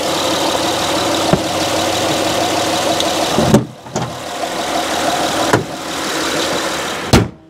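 2015 Honda Odyssey's 3.5-litre V6 idling steadily and smoothly under the open hood, with its cylinder-one misfire cured by a new spark plug in place of an oil-fouled one. A few sharp knocks and clicks come over it as the plastic engine cover is pressed back on, and there is a louder thump near the end.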